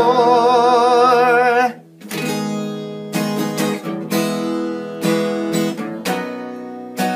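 A singing voice holds the song's last word, "more", with a wavering vibrato for about a second and a half. After a short break, an acoustic guitar strums closing chords about once a second, letting each ring.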